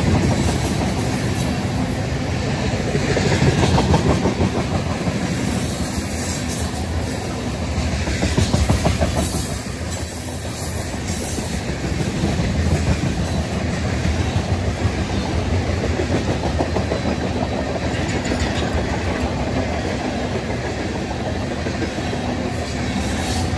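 Freight train of tank cars rolling past at close range: a steady rumble of steel wheels on the rails with a rapid run of clicks over the track joints, swelling slightly a few times as cars go by.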